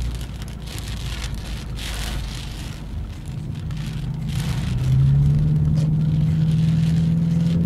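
Inside a Subaru XV on a rain-wet road: tyre and rain hiss with a few brief louder gusts. About five seconds in, the car's flat-four engine note rises and holds as a steady hum climbing slightly in pitch.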